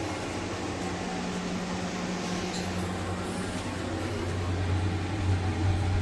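A steady low machine hum over an even hiss of noise.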